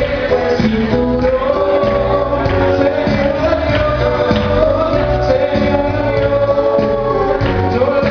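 Live band music with singing: sustained held notes over a steady beat.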